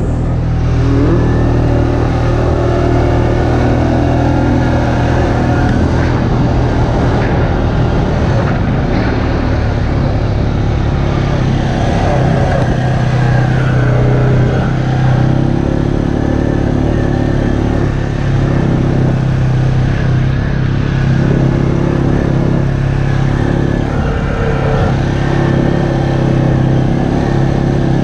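ATV's single-cylinder four-stroke engine running steadily as it rides a dirt trail, its pitch rising and falling slightly with the throttle.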